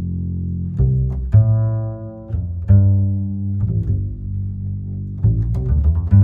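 Background music: low bowed and plucked string notes with a slow, steady pulse.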